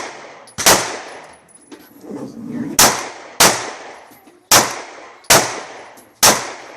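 Six shots from a 9mm semi-automatic pistol, fired one at a time at an uneven pace, each a sharp crack with a short decaying tail.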